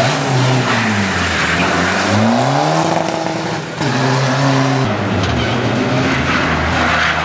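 Diesel rally car engine driving past at speed. Its revs fall and climb several times as it shifts gear and brakes for a corner.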